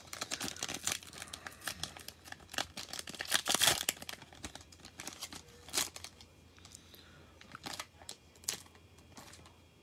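Plastic wrapper of a basketball-card cello pack being torn open and crinkled: a dense run of tearing and crackling for the first four seconds, loudest around three and a half seconds in, then scattered single crinkles as the wrapper is handled.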